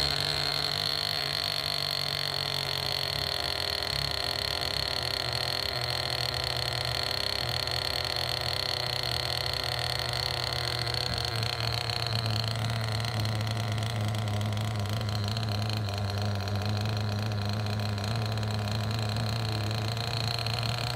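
Kyosho .10 nitro two-stroke glow engine running steadily, just after catching on the first pull with the glow igniter on. About twelve seconds in its pitch drops a little and it settles at a slightly slower speed.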